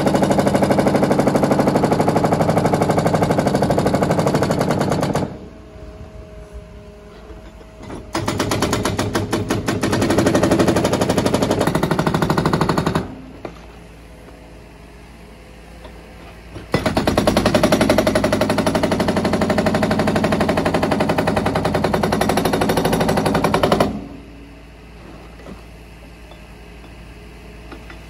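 Hydraulic breaker hammer on a Menzi Muck M545x walking excavator pounding concrete in rapid, rhythmic blows, in three long spells. Between the spells the hammer stops and only the excavator's quieter running is heard.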